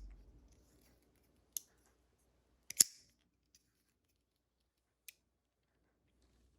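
Boker Kalashnikov push-button automatic knife clicking as it is handled. The loudest is one sharp metallic snap just under three seconds in, just after a tiny click; lighter single clicks come about a second and a half in and about five seconds in.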